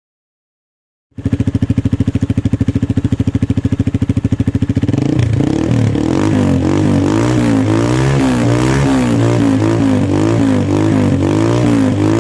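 Honda CRF150L single-cylinder four-stroke engine running through an aftermarket Villain black carbon muffler. It starts after about a second of silence and idles with an even, rapid exhaust pulse, then from about five seconds in is revved up and down repeatedly in quick throttle blips.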